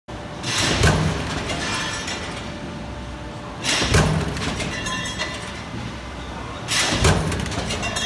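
Metal stamping press line cycling: a heavy press stroke about every three seconds, each rising briefly to a loud metallic impact, over a steady machine running noise.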